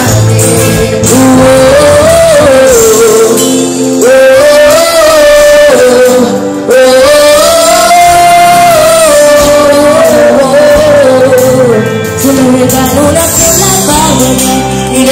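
Loud live music from a stage PA: a male voice sings a melody of long, held notes over a band.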